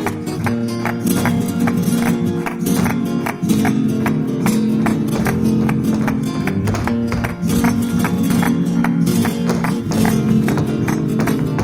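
Flamenco guitar music in farruca style, with a fast run of sharp strummed and percussive accents over sustained low notes.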